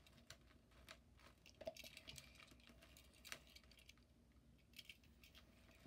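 Near silence with a few faint clicks and taps of a die-cast toy car being handled and set down on a tabletop.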